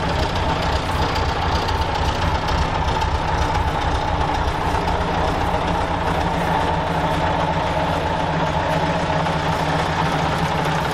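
A 1979 Scania 141's V8 diesel idling steadily, close to its side exhaust pipe. The engine runs smoothly.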